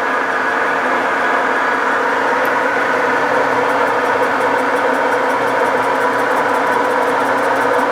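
Metal lathe running at about 325 RPM while facing a cast iron pulley held in a 3-jaw chuck, cutting dry: a steady mechanical hum with several steady tones.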